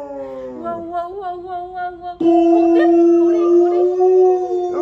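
Alaskan Malamute howling, with a recorded wolf howl playing alongside. A falling howl trails off in the first second, then a loud, steady howl starts abruptly about two seconds in.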